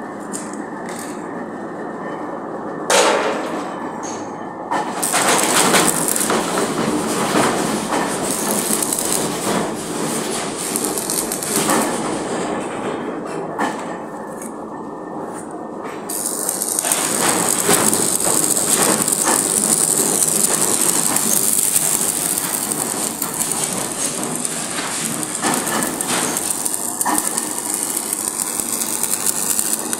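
Electric arc welding with a stick electrode on the seam of a large iron karahi: the arc crackles and sizzles, drops away briefly about halfway, then runs on as a steadier, stronger hiss. A single sharp knock about three seconds in.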